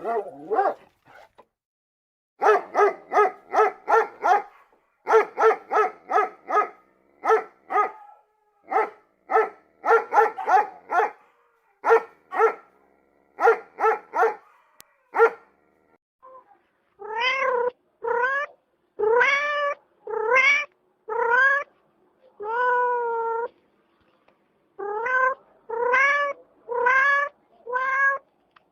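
A string of short, quick yaps in tight clusters, then, from about halfway through, a domestic cat meowing over and over, each meow longer with a pitch that rises and falls.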